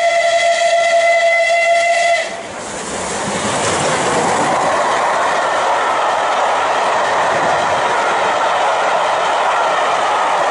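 Steam locomotive whistle sounding one steady chord that cuts off about two seconds in, then the continuous rush of the locomotive and its Pullman coaches passing at speed.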